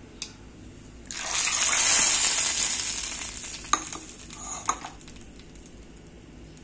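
Hot tempering oil with mustard seeds and curry leaves poured onto coconut chutney: a sudden loud sizzle about a second in that dies away over the next few seconds, with a few sharp clicks.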